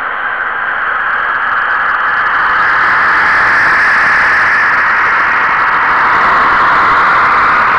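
Steady hiss and rattle of an N-scale model passenger train rolling past a camera car on the layout, heard through the camera car's small microphone; it swells about two seconds in and then holds.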